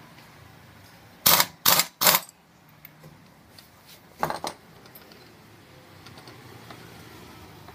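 Short, loud metallic clattering bursts as a tool works the centre nut of a motorcycle's exposed clutch assembly: three in quick succession, then a quicker double about two seconds later.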